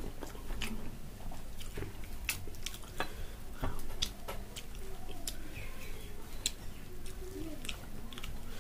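A person chewing food with the mouth close to the microphone, with frequent wet smacks and clicks at an irregular pace.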